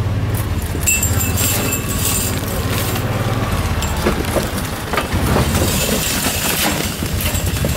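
Side-by-side utility vehicle driving along a rough trail: steady low engine drone with clinking rattles and knocks from the vehicle's body and cage.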